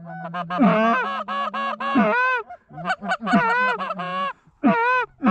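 Several goose calls blown hard in rapid, overlapping honks and clucks, imitating Canada geese to bring in a flock.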